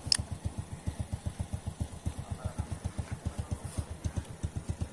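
A small engine idling, a steady low putter of about ten beats a second, with one sharp click just after the start.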